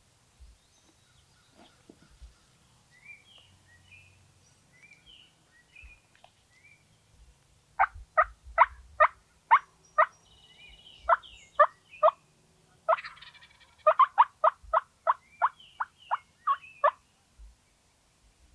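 Wild turkey calling: three loud runs of short, rapid notes, about four a second, starting about eight seconds in. Faint songbird chirps come before them.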